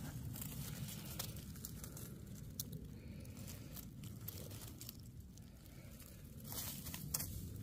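Dry leaf litter and twigs crackling and rustling as a large porcino is worked loose by hand and pulled from the forest floor, with a few sharp snaps that come thicker near the end.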